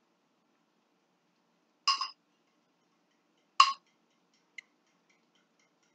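A utensil clinks against a bowl of beaten egg twice, about a second and a half apart, each a sharp strike with a short ring, followed by a faint tick.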